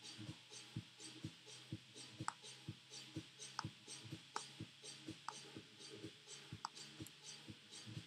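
Faint, evenly spaced clicking, about two clicks a second, with a few sharper clicks scattered over it.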